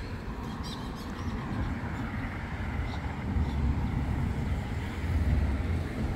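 Low, fluctuating outdoor rumble beside a road, swelling about three and a half seconds in and again around five seconds.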